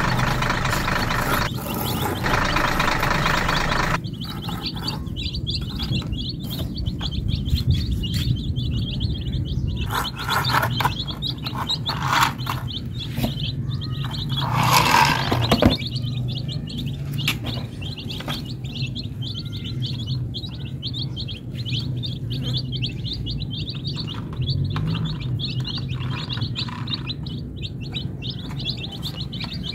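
A flock of baby chicks peeping continuously, many rapid high-pitched cheeps overlapping. For the first four seconds an engine-like running sound covers them, then stops abruptly.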